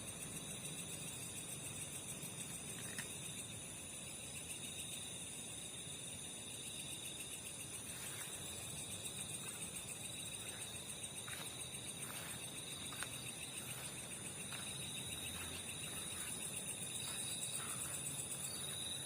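Night insect chorus: crickets trilling steadily in high, even bands. Faint scattered clicks join in the second half.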